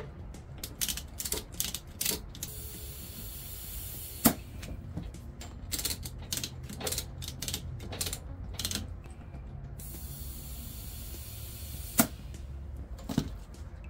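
Ratchet strap being cranked tight around a tractor tire, the ratchet clicking in quick runs, with two stretches of compressed air hissing from an air hose, each ending in a sharp snap.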